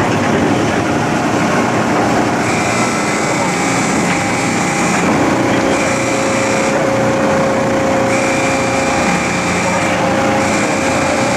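Dockside container crane machinery running steadily, with a higher whine that comes on and cuts off again four times.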